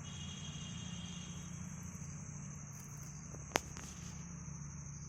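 Insects trilling in a steady, unbroken high-pitched chorus over a low steady rumble, with one sharp click about three and a half seconds in.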